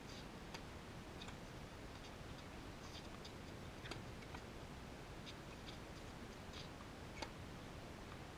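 Tennis ball struck by rackets during a rally: three sharp pocks, just after the start, about four seconds in and about seven seconds in, the last the loudest. Between them, faint short high chirps over a steady hiss.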